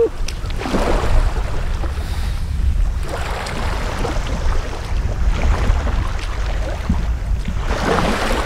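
Wind buffeting the microphone: a steady, heavy low rumble that rises and falls in gusts.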